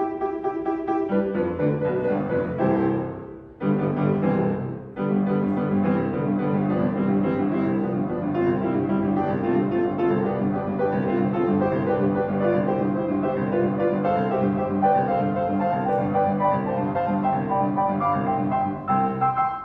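Grand piano played solo: sustained chords and melody, with two brief breaks in the sound about three and a half and five seconds in.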